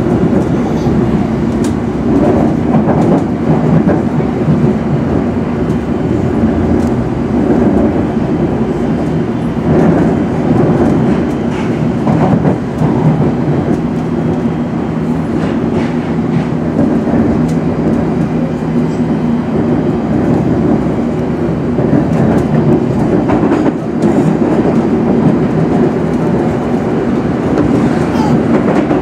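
Interior of a London Underground S7 Stock train under way: a steady loud rumble of wheels on rails with a low hum running through it, and scattered clicks over rail joints.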